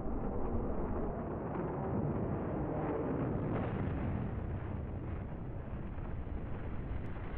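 Steady low rumbling roar of a jet crash fireball burning, with no single sharp blast.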